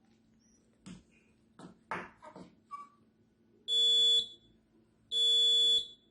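Buzzer of a homemade touchless infrared doorbell sounding twice, each a steady high-pitched beep of about half a second, as the sensor detects something close and switches the buzzer on.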